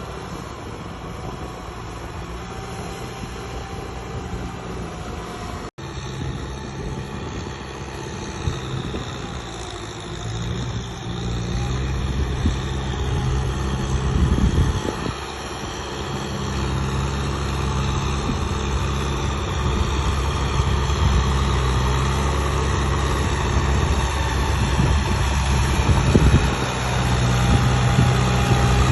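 Diesel engine of heavy farm or earthmoving machinery running steadily, growing louder after about twelve seconds, with a momentary dropout about six seconds in.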